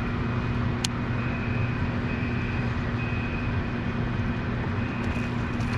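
Steady low hum of a motor with a faint high whine over it, holding even throughout, with a single sharp click about a second in.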